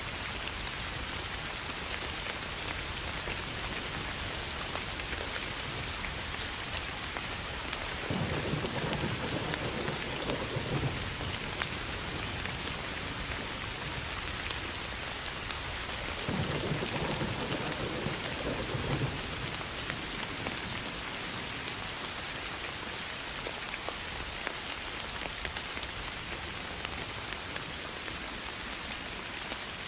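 Steady soft rain falling, with scattered drops ticking. Thunder rolls twice, about eight and about sixteen seconds in, each lasting about three seconds.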